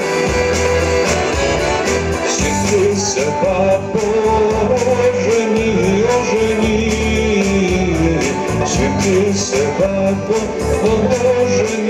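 Instrumental backing track for a Bulgarian song playing through a small speaker set; a few seconds in, a man begins singing the melody into a microphone over it.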